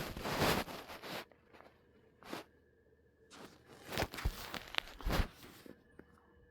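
Several short scuffing noises with a few low thumps, spread over a few seconds.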